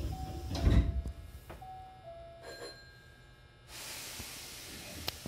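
Train door-closing chime, a falling two-note ding-dong repeated, as the sliding passenger doors of a Hankyu train close. The doors thud shut about a second in, the chime sounds twice more, then a steady hiss starts past the halfway mark and a sharp click comes near the end.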